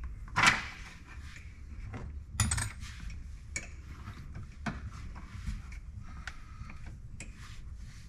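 Hand tools clinking against metal: a wrench and Allen key working a nut and bolt on a steel bracket at a UTV's steering column. A few sharp metallic clicks, the loudest about half a second in, among quieter handling noise.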